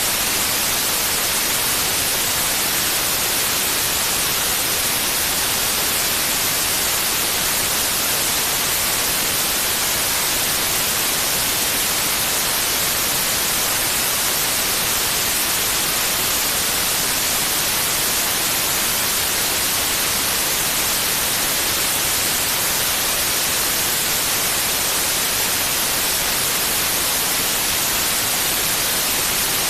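Steady white noise: an even, unchanging hiss, brightest in the high frequencies, played as a sleep sound.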